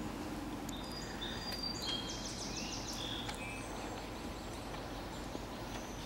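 Steady outdoor background noise with a few short, high bird chirps and a quick rapid trill about two seconds in.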